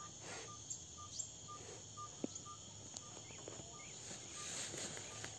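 Insects chirring steadily, with a short high note repeating about twice a second.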